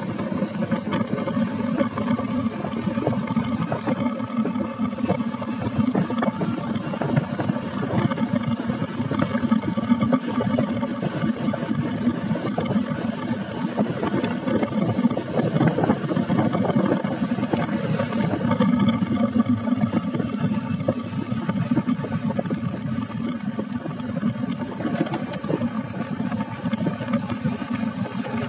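Motorcycle engine running steadily while riding along a road, with road and wind noise underneath.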